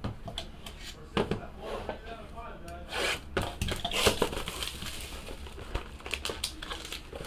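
Hands handling and opening a cardboard trading-card box: the box slid and turned, cardboard rubbing and scraping, with light taps as the lid is worked open.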